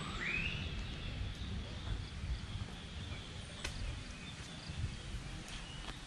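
A single short bird call rising in pitch at the very start, over a steady low outdoor rumble and a faint high hiss; two faint sharp clicks come later.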